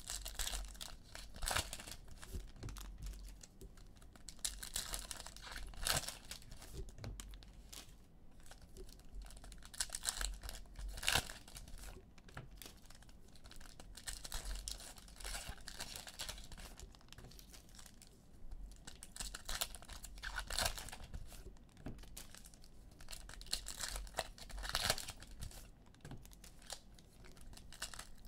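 Trading-card pack wrappers being torn open and crinkled by hand, in irregular bursts of rustling with a few sharper tears.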